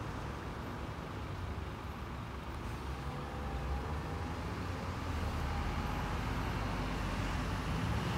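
Steady low rumble of road traffic and car engines, growing a little louder in the second half.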